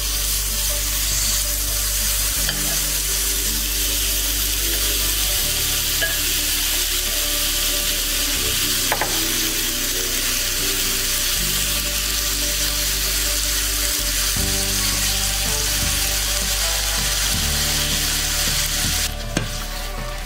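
Cubed chicken breast sizzling as it fries in hot oil in a nonstick pan, stirred with a silicone spatula; the sizzle dies down near the end. Soft background music runs underneath.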